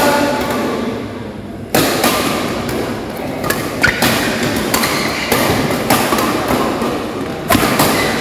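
Badminton rackets striking a shuttlecock in a fast doubles rally: sharp hits every second or so, each ringing on in the hall's echo.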